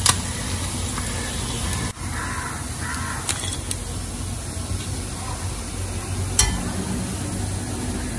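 Nethili anchovies sizzling in hot frying oil as they are lifted out with a slotted spoon, ending abruptly about two seconds in. A steady hiss with a few faint clicks follows.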